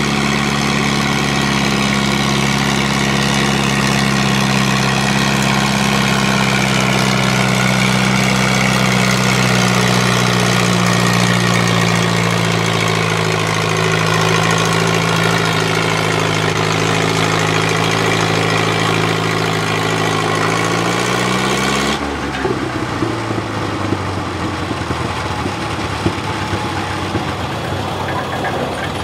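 Four-cylinder engine of an antique McCormick Farmall tractor running hard while pulling a weight-transfer sled, its pitch sagging slowly as it lugs down under the growing load. Near the end of the pull it briefly revs up, then drops to a quieter, uneven run with a few sharp knocks.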